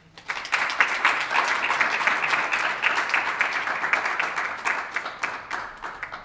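A small audience applauding, dense clapping that starts at once and dies away near the end.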